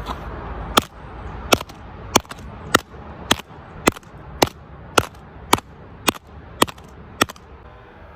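A hammer striking an iPhone 7 twelve times in a steady rhythm, nearly two sharp blows a second, as the phone's screen breaks apart.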